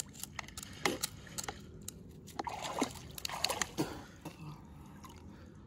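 River water sloshing and splashing around a person wading, with several sharp clicks as a knife pries at an oyster shell over a plastic tub.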